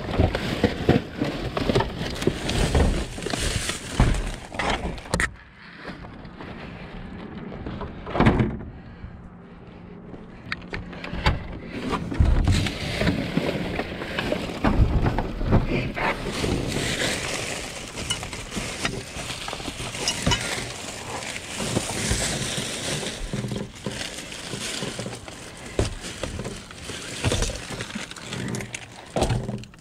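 Plastic trash bags and food packaging rustling and crinkling as hands dig through a dumpster, with irregular knocks and crackles. The handling eases off for a few seconds about a quarter of the way in, then picks up again.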